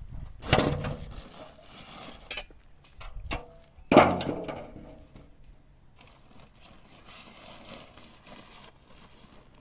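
Two loud crashing knocks about three and a half seconds apart, each trailing off over about a second, with a few lighter knocks between them.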